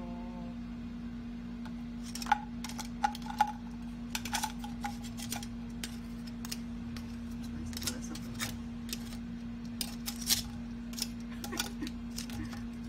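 Metal kitchen tongs clicking and tapping against a ceramic plate and the shell of a cooked lobster, in irregular sharp clicks, some ringing briefly, from about two seconds in. A steady low hum runs underneath.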